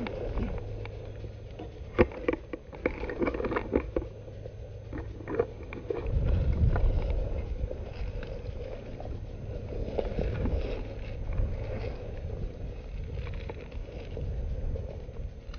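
Handling and movement noise of a player shifting position on dry fallen leaves: scattered knocks and rustling in the first few seconds, then a steady low rumble from about six seconds in.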